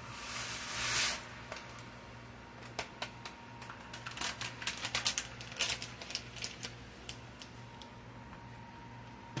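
Dry packaged rice mix poured from its packet into a pot of water, a short rush in the first second. It is followed by a run of light, irregular clicks and taps.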